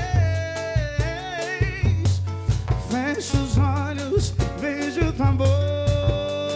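A band playing a song, with a singer's voice carrying the melody in Portuguese over drum kit and bass on a steady beat.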